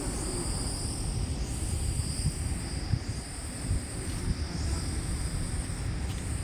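Wind buffeting the microphone in an uneven low rumble, over a steady high chirring of insects that dips briefly every second or two.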